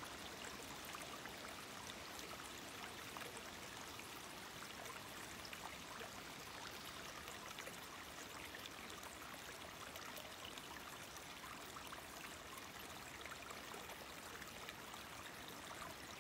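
Small woodland stream trickling steadily over mossy rocks in a low cascade.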